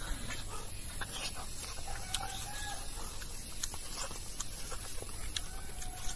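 Eating by hand from a brass plate: small clicks and scrapes of fingers gathering rice on the metal, and chewing. A faint, drawn-out animal call sounds twice in the background.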